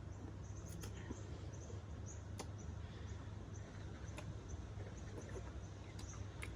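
Quiet background with a steady low hum, many faint short high chirps and a few sharp clicks scattered through.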